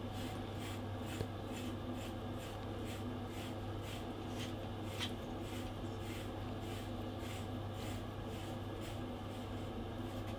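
Grooming brush drawn through a Shiba Inu's thick coat in quick repeated strokes, a short scratchy rasp about two or three times a second, combing out the shedding undercoat.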